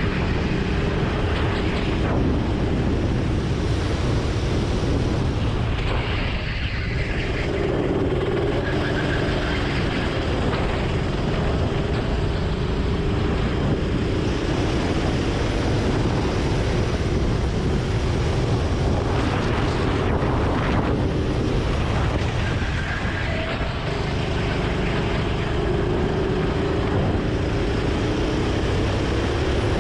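Go-kart engine running at racing speed, with a heavy low rumble underneath. Its note wavers and fades back twice, about six seconds in and again a little after twenty seconds, then picks up again.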